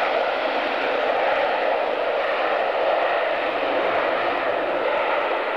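Two Panavia Tornados' RB199 turbofan engines at takeoff power during a side-by-side pair takeoff roll: a loud, steady jet roar.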